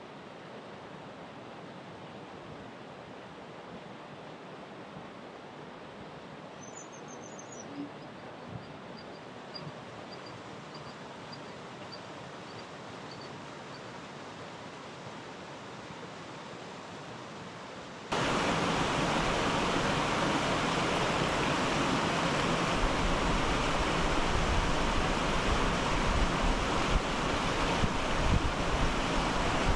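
Steady rushing water of a mountain stream and waterfall. A bird gives a quick high chirp about seven seconds in, then a run of about eight evenly spaced high notes. About eighteen seconds in the rushing turns abruptly much louder and fuller, as of the waterfall close up.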